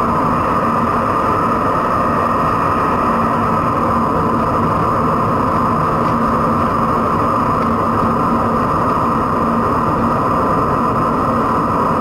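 Steady in-cabin drone of a Porsche flat-six engine and tyre and road noise at highway speed, muffled by being recorded through an action camera's sealed waterproof dive case.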